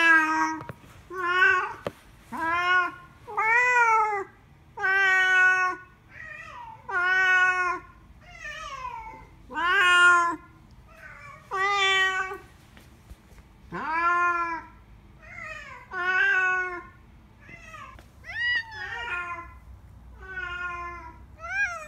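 A domestic cat meowing over and over, well over a dozen long, drawn-out meows, one roughly every second, most rising and then falling in pitch.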